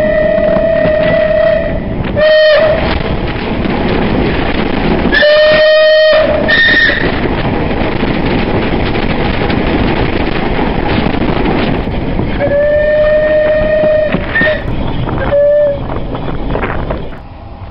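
Steam whistle of unrebuilt Bulleid West Country Class Pacific No. 21C123 Blackmoor Vale sounding a series of blasts over the steady noise of the train running. A blast ends about a second and a half in, several shorter blasts follow, then another long one comes about three-quarters of the way through.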